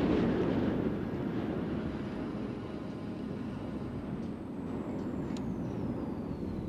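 Dark, rumbling ambient noise, loudest at the start, with a thin high whistle that glides slowly down in pitch throughout and a short tick about five seconds in.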